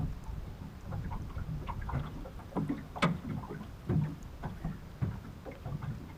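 Water lapping and slapping against the hull of a small boat, with a run of short knocks, the sharpest about halfway through.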